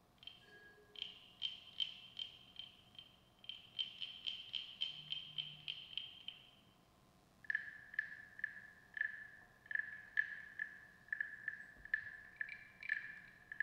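Small plant-material percussion struck or plucked in quick, uneven strokes, each a short high-pitched ping. About seven seconds in, the ping drops to a lower pitch and the strokes go on.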